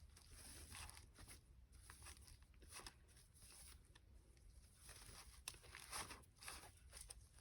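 Near silence with faint, scattered rustles and light taps of a handmade paper-and-fabric journal being handled and turned over.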